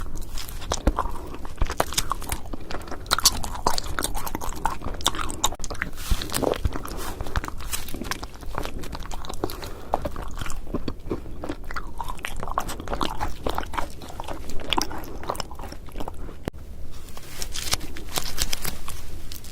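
Close-miked biting and chewing of cotton candy and honey jelly sweets, with dense crisp crunching and crackling.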